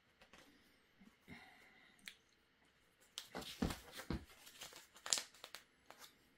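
Printer packaging being handled: scattered rustling and crinkling with some tearing-like noises, busiest from about three to five and a half seconds in.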